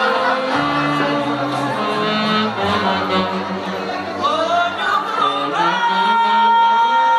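Live band music: a woman singing into a microphone over a bass line. Near the end it settles on one long held high note.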